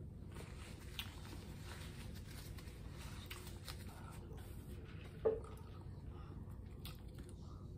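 Faint wet eating sounds: soft chewing and squishy, sticky handling of sauce-covered seafood-boil food, with scattered small clicks and one short louder sound about five seconds in.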